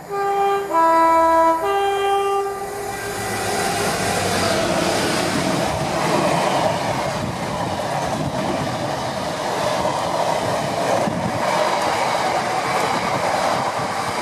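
GB Railfreight Class 66 diesel locomotive sounding its two-tone horn three times, high, low, high, over about two and a half seconds. It then passes at speed hauling a long train of bulk powder tank wagons, whose wheels keep up a steady rumble on the track.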